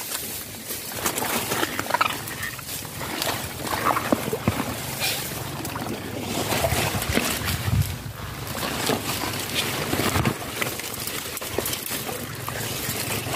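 Water sloshing and splashing in irregular bursts, mixed with the rustle of water hyacinth leaves, as someone moves through a dense mat of the plants.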